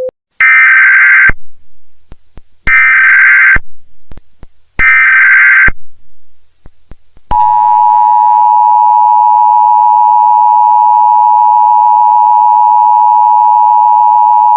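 Emergency Alert System-style broadcast alert: three harsh data-tone header bursts, each about a second long and a couple of seconds apart. About seven seconds in, a loud, steady two-tone attention signal begins and holds.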